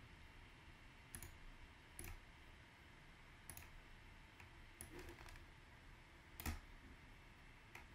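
Faint computer mouse clicks, about seven spaced a second or so apart, over quiet room tone.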